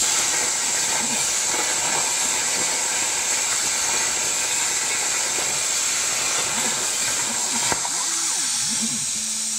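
CNC plasma cutter cutting metal plate over a water table: the arc starts suddenly with a loud, steady hiss, while the gantry's motors whine as the torch moves. A sharp click comes about three-quarters of the way through, after which the arc is off and a slightly quieter hiss of air carries on.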